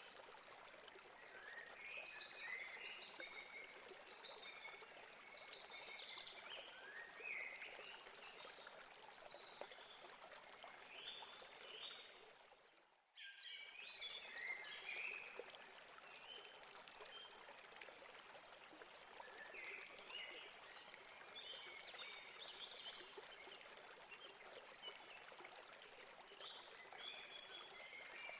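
Faint stream of water running steadily over rocks, with birds chirping on and off throughout. The sound briefly drops almost to silence about halfway through.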